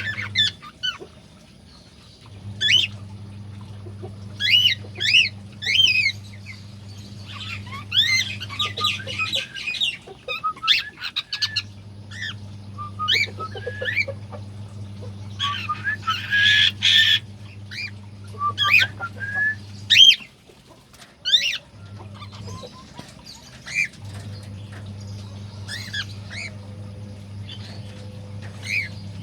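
Cockatiels calling: a string of short rising chirps and whistles, with a noisier burst of overlapping calls about halfway through, over a steady low hum that cuts out a few times.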